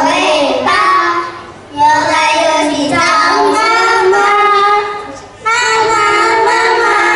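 Young children singing a song together in three sung phrases, with short breaks between them.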